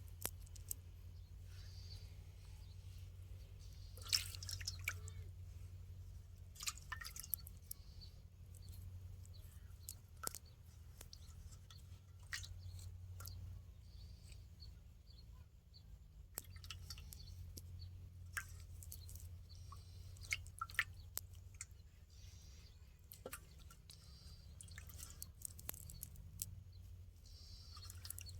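Water dripping and small splashes at irregular moments, with a low steady hum underneath.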